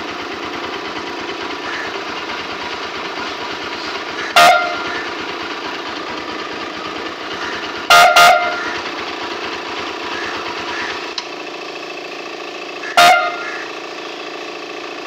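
Short air horn blasts over a running engine: one toot, then two quick toots, then one more. The engine hum lowers near the end.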